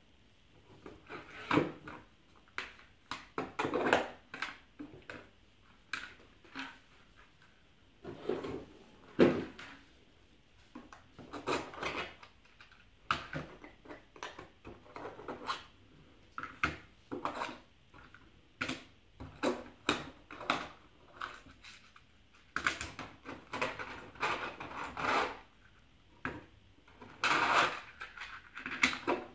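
Irregular clacks, taps and short rattles of board game pieces being handled and set down: cardboard tiles and 3D-printed plastic trays placed on a wooden table, with small pieces rattling in the trays.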